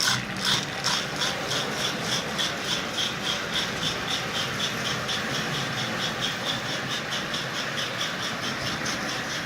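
Lionel Sound of Power mechanical tender chuffing on a toy train layout: ball bearings are lifted by paddles inside its hollow disc and dropped back, driven by a rubber band acting as the drum's belt against the centre rail. The chuffs come a couple a second at first and quicken to about five a second as the train picks up speed, over the steady running of the locomotive.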